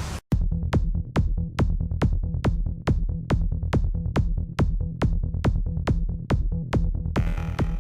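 Electronic dance music with a steady, fast beat of about two strokes a second over a heavy bass. A fuller layer of sound joins about seven seconds in.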